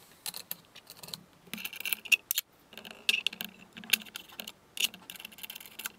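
Irregular light metallic clicks and clinks of diamond dish wheels being fitted onto a bench grinder's arbors and their nuts turned by hand.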